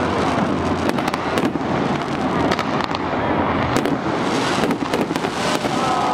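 Aerial fireworks bursting and crackling in a dense, continuous barrage of many sharp, overlapping bangs.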